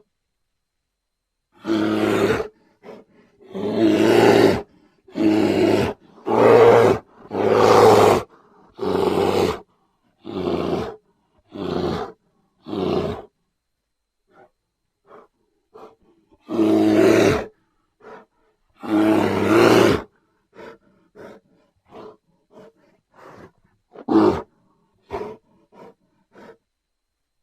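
Grizzly bear vocalising in a series of separate loud calls, each about half a second to a second long, with dead silence between them. Near the middle and again toward the end it gives a string of shorter, quieter calls.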